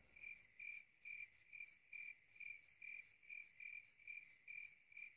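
Faint crickets chirping in a steady, even rhythm, several short chirps a second.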